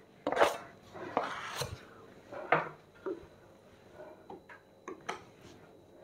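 Steel plastering trowel and spatula scraping and clinking while wet gypsum plaster is loaded and spread onto a window reveal: a string of short, irregular scrapes and taps.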